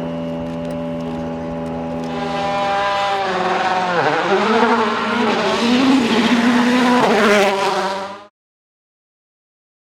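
Rally car engine at high revs, holding a steady pitch for about three seconds, then louder and revving up and down through gear changes as it goes flat out. The sound cuts off abruptly about eight seconds in, followed by complete silence.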